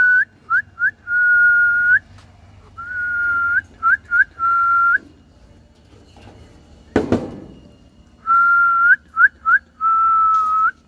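A person whistling a call to bring pigeons into the loft. The phrase is a held whistle flicking up at the end, two quick rising chirps, then another held whistle, and it is repeated three times. A single thump falls between the second and third phrases.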